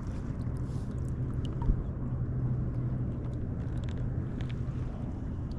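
Steady low rumble of wind and water on an open-water kayak, with a faint low hum that fades out about five seconds in and a few small ticks.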